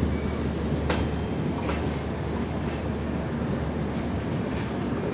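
Passenger express coach rolling out of a station at low speed, heard from the open coach door: a steady low rumble of wheels on rails with a few sharp clicks over rail joints in the first two seconds.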